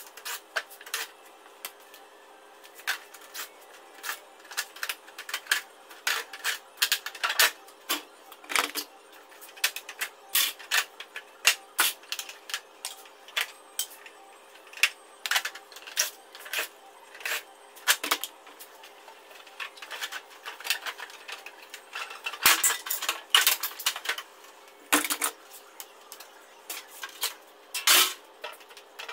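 Irregular clicks, knocks and clatters of plastic casing, screws and tools as a wall-mounted split air-conditioner indoor unit is taken apart by hand, the casing being pried and lifted off its frame. The knocks come in uneven clusters, loudest about ten seconds in and again near the end.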